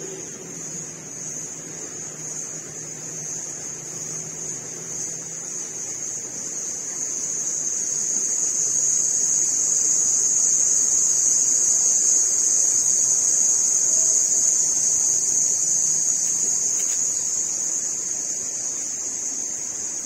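A steady, high-pitched insect drone that swells to its loudest around the middle and fades toward the end.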